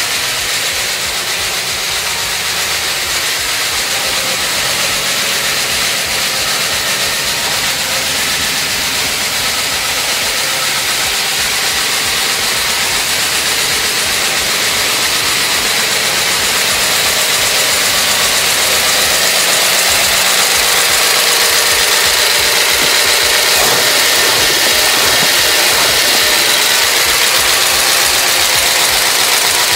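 Freshly rebuilt 383 Mopar big-block V8 idling steadily on a run stand, its exhaust going through 40-series Flowmaster mufflers. It grows a little louder after about the middle.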